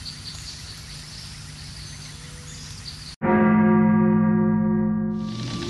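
Steady background noise with faint high chirps, then about three seconds in a single bell-like metallic tone rings out loudly and fades over about two seconds.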